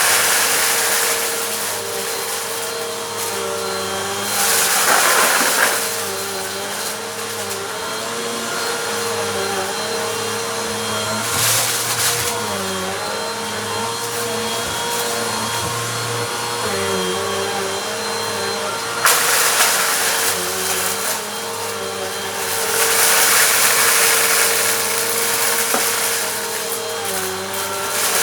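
Bissell Compact vacuum cleaner running on a rug, picking up crunchy dirt. Its steady motor hum dips in pitch now and then under load, and a louder rushing hiss swells several times as it passes over the dirt.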